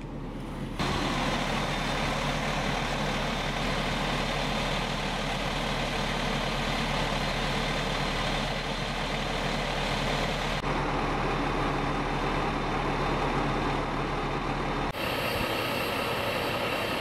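Large truck engines idling: a steady drone with a low hum, changing abruptly about a second in, after about ten seconds and again near fifteen seconds.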